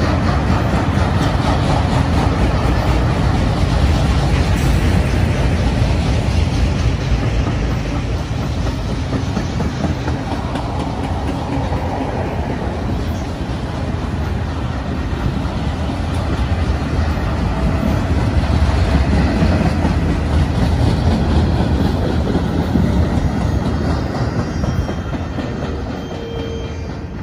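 Freight train of loaded flatcars rolling past, with a steady rumble of steel wheels on the rails. It fades over the last few seconds as the final cars go by.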